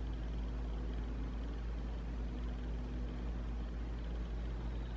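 Steady low hum with faint hiss and no distinct events: background noise of the recording.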